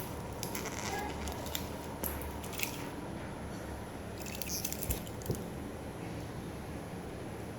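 Hands handling a wristwatch and its packaging: scattered small clicks and crinkles in three short clusters over a steady background hiss.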